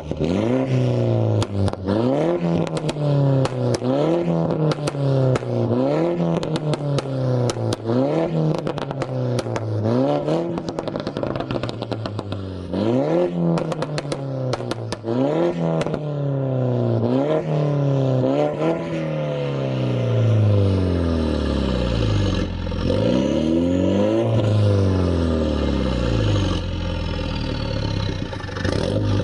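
A 2015 Mini Cooper S (F56) with a catless straight-pipe exhaust: its turbocharged 2.0-litre four-cylinder is revved over and over in quick blips, about one every second and a half, with sharp crackles and pops in between. From about two-thirds of the way through, the revs rise and fall more slowly and drop lower.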